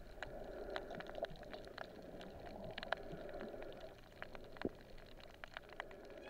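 Underwater ambience over a coral reef, heard through a submerged camera: a faint, even water hiss with many scattered sharp clicks and crackles.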